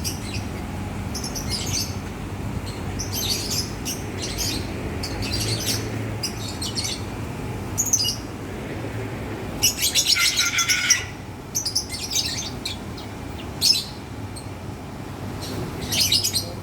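Lovebirds chirping and chattering in short, shrill bursts, with a denser spell of chatter about ten seconds in.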